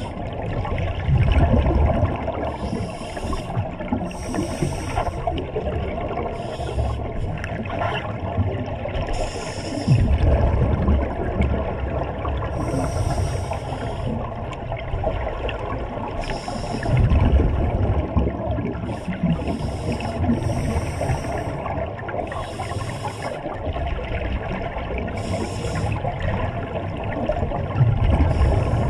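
Scuba divers breathing through their regulators underwater: repeated short hisses from the regulators, with low bubbling surges from exhaled air a few times, about 1, 10, 17 and 28 seconds in.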